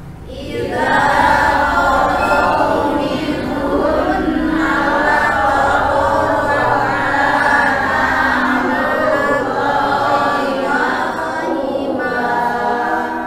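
Many voices reciting a verse of the Qur'an together in unison, a chanted chorus. It starts about half a second in and fades near the end.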